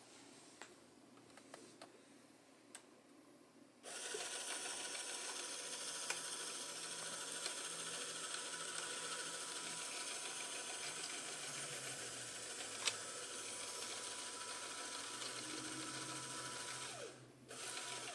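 LEGO Power Functions electric motor driving the hauler's winch through plastic gears: a steady whirring with a gear whine that starts about four seconds in and stops near the end, with one sharp click partway through.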